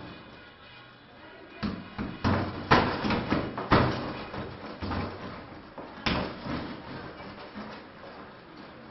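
Hanging punching bag being struck, dull thuds: a quick run of five or six hits about one and a half to four seconds in, then a single hard hit about six seconds in and a few fainter ones after.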